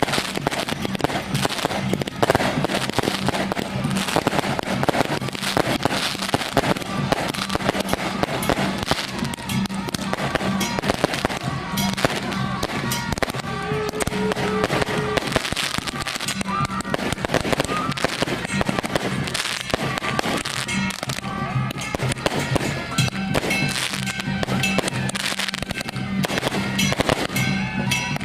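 Strings of firecrackers crackling densely and without a break, with music playing underneath in low, steady tones that come and go.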